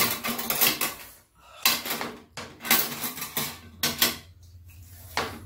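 Metal spoon and chopsticks scraping and clinking against a frying pan as food is scooped out, in an irregular string of short scrapes and clicks.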